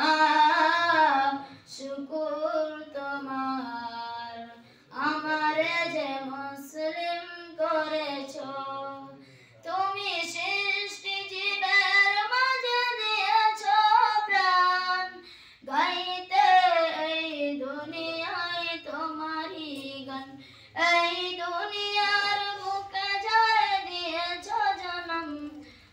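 A boy singing a Bangla gazal unaccompanied into a microphone, in long melismatic phrases with brief pauses for breath between them.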